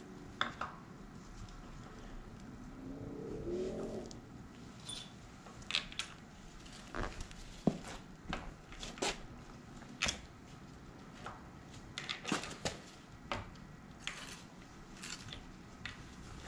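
Irregular light metallic clicks and clinks of tools and parts being handled at the front of an LQ4 V8 while the camshaft timing set is fitted, with a short low rising sound about three seconds in.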